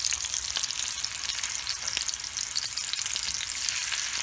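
Spice-marinated salmon fillets shallow-frying in hot oil in a cast-iron skillet: a steady sizzling hiss with many small crackling pops.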